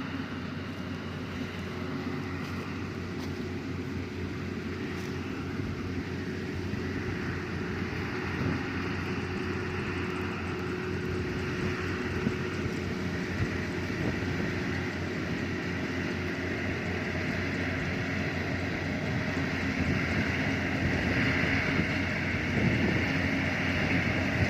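Yanmar AW70V rice combine harvester running steadily as it harvests, its diesel engine and threshing machinery making a constant hum that grows gradually louder toward the end.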